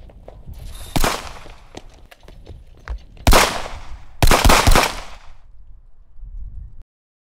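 A few running footsteps, then a sharp bang about a second in, a loud burst at about three seconds and a rapid cluster of loud bangs just after four seconds. The sound cuts off abruptly to silence near the end.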